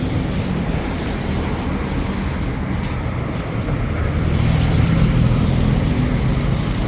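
Street traffic with a motor vehicle's engine running close by, growing louder about halfway through.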